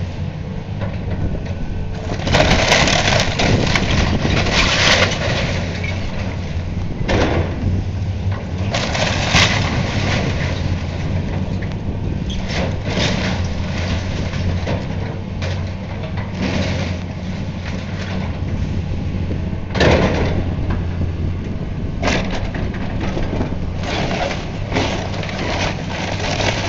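Heavy demolition machine's engine running steadily while it tears down a building, with repeated crunching and crashing of breaking debris, loudest from about two to five seconds in and again near twenty seconds.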